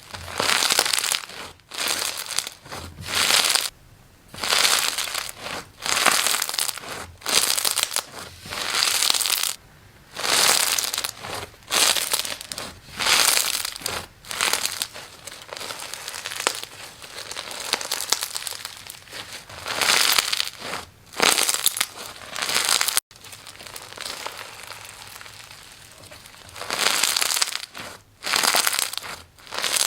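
Slime being squeezed, pressed and stretched by hand, giving repeated crackling, crinkly bursts about once a second.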